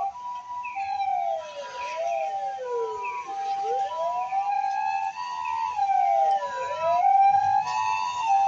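Japanese ambulance siren: the electronic two-tone "pee-po" alternating between a high and a low note, overlaid by the wail of the mechanical motor siren, which glides slowly down and back up. Both grow louder toward the end.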